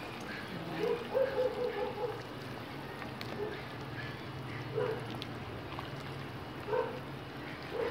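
A ladle stirring soup and leafy vegetables in a stainless steel pot, with a few faint knocks. Short pitched calls, from an animal or a voice, sound in the background about a second in and again around five and seven seconds.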